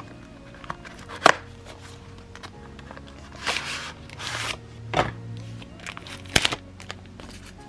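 Soft background music with packaging handling over it. There are three sharp clicks from the cardboard phone-case box being opened, the loudest a little over a second in. Around the middle come two short rustles of the case's plastic sleeve sliding out.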